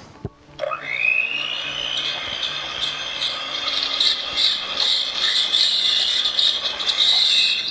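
Electric mixer beating frosting: the motor starts about half a second in with a quickly rising whine, runs steadily with a rough scraping sound from the beaters in the bowl, then stops abruptly near the end.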